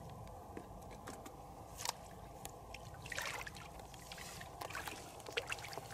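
Hands working through shallow muddy paddy water, feeling in the mud for fish: soft sloshing with small splashes and trickles now and then, over a low steady background noise.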